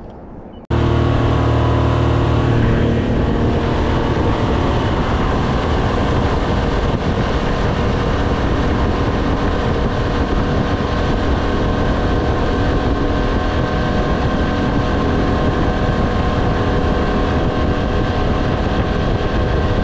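Mercury outboard motor running steadily with the boat under way at speed. The sound starts abruptly just under a second in.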